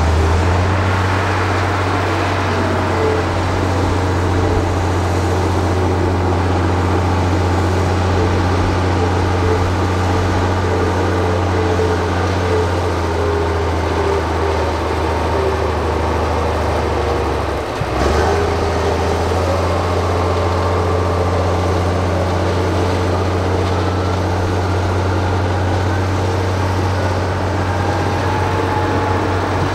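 Heavy earthmoving machine's diesel engine running with a steady low hum, broken briefly about eighteen seconds in.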